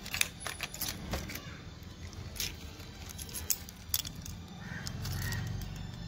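A bunch of keys on a keyring, with a flip key and an alarm remote, jangling and clinking as they are handled. The clinks come in a quick cluster in the first second, then a few single clinks later.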